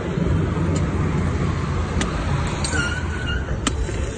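Steady low rumble of roadside traffic, with a few sharp knocks, the clearest about two seconds in and near the end, as a knife chops into palmyra fruit (ice apple).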